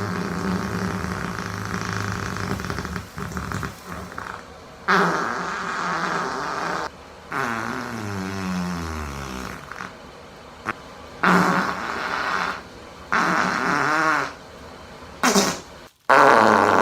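Fart sound effects, a string of about seven farts, each lasting from half a second to a few seconds, with short gaps between them. The longest, near the middle, drops in pitch as it goes.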